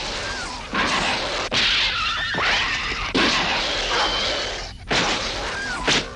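Cartoon dog fight: snarling, growling and yelping in several loud, rough surges.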